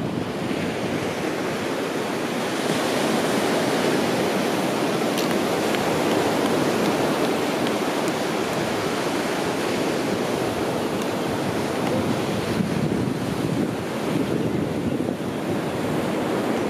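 Continuous wash of sea surf on a sandy beach, mixed with wind rumbling on the microphone; the wash swells a little a few seconds in and then holds steady.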